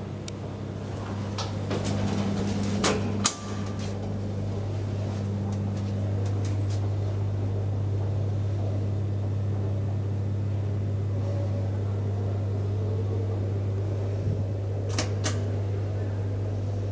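Steady hum inside the car of a 1974 KONE traction elevator, with a few sharp clicks about two to three seconds in and again near the end; one early click is followed by a short high beep.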